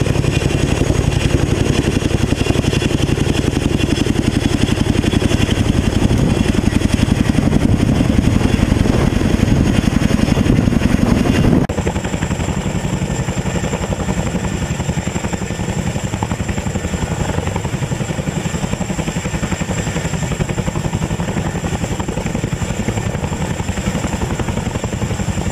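Boeing CH-47 Chinook tandem-rotor helicopter hovering: a loud, steady, rapid rotor beat with its twin turboshaft engines running. About twelve seconds in the sound changes abruptly, heard from right beneath the aircraft, with less low rumble and a steady high whine.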